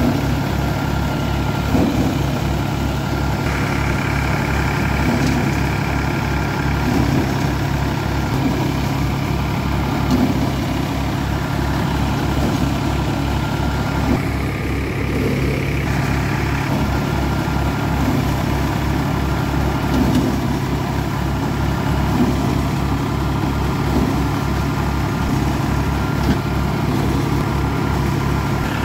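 New Holland 4710 tractor's three-cylinder diesel engine running steadily, driving a Dashmesh paddy thresher. The thresher runs with a short swish every couple of seconds as bundles of paddy are fed in.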